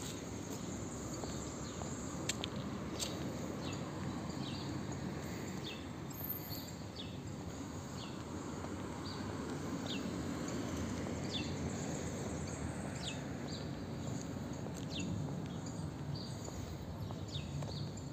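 Steady outdoor background noise with short, high, falling chirps from a bird, one every second or so.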